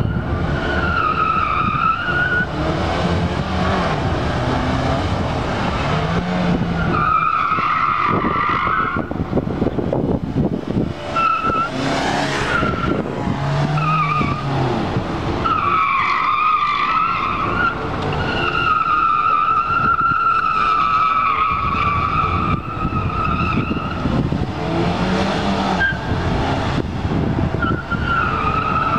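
Suzuki Swift Sport's tyres squealing in a string of long, wavering squeals as the car is flung through a cone course. Between the squeals its 1.6-litre four-cylinder engine revs up and down.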